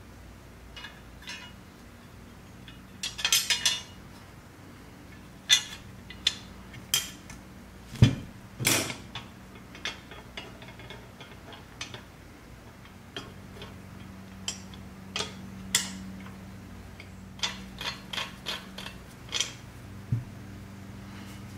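Irregular clicks, taps and light clatter of a metal axle shaft and plastic gears being fitted into a painted steel Tonka toy-truck chassis, with the loudest knocks about eight to nine seconds in.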